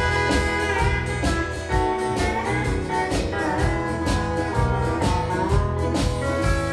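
Live country band playing an instrumental intro: pedal steel guitar with sliding notes over electric and acoustic guitars and a steady drum beat, no vocals yet.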